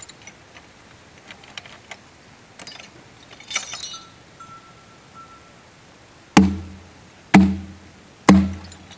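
Three heavy knocks about a second apart, starting about six seconds in, each ringing briefly and low. Before them, only a few faint clicks and a short metallic jingle of harness chain.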